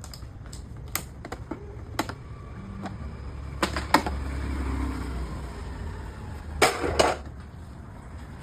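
Scattered sharp clicks and knocks of hand tools and parts being handled while a scooter is dismantled, with two louder clusters of knocks, one in the middle and one near the end. A low rumble rises under the middle stretch.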